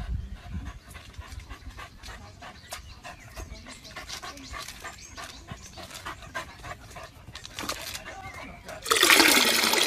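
A small black dog panting and snuffling in quick, short breaths as it chases a squirrel around a tree trunk. Near the end there is a much louder noisy sound lasting about a second.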